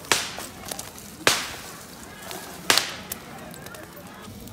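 Split firewood burning in an open fire pit, popping sharply three times with small crackles in between.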